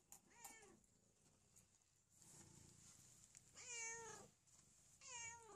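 Domestic cat meowing three times: a short meow about half a second in, then two longer, louder meows near the end.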